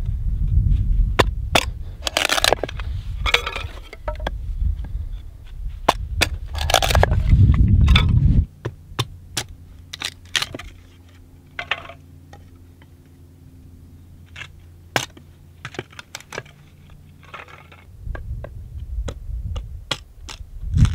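Fixed-blade knife splitting kindling: irregular sharp cracks and taps of dry wood splitting. Under them runs a low rumble that drops away suddenly about eight seconds in and comes back near the end.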